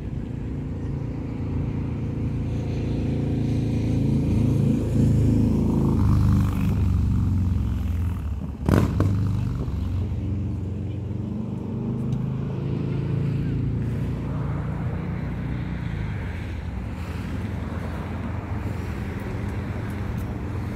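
A motor vehicle's engine running, its pitch sliding around five seconds in where it is loudest, with one sharp knock about nine seconds in.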